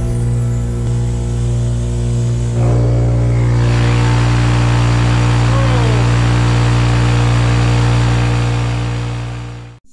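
Craftsman 30-gallon oil-free air compressor running with a steady hum inside a foam-lined plywood soundproofing box. About two and a half seconds in it gets louder and hissier as the box lid is lifted, and it fades out in the last second.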